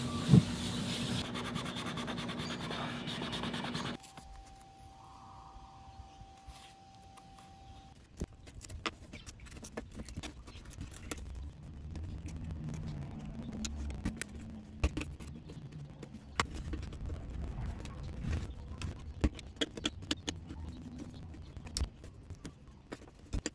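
Single-edge razor blade scraping and cutting blue painter's tape stuck on a metal emblem on a wooden bench: many small irregular clicks and short scrapes. It is preceded by a louder steady noise that cuts off suddenly about four seconds in.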